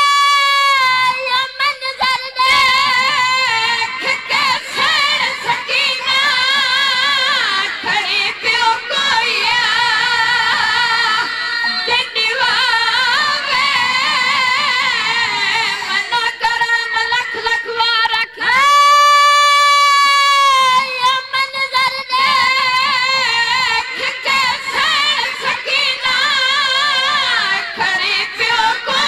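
Boys' voices singing a noha, a Shia lamentation chant, amplified through a microphone. The melody wavers and turns, with a long held note about two-thirds of the way through.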